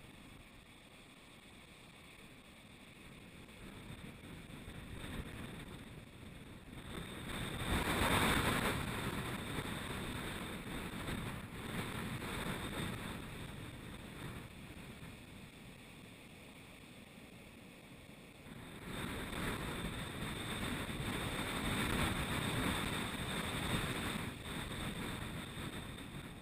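Ocean surf and shore wash heard from a GoPro set at the waterline, muffled by its waterproof housing: a rushing noise that swells as waves break and wash in, loudest about eight seconds in and again for several seconds past the middle.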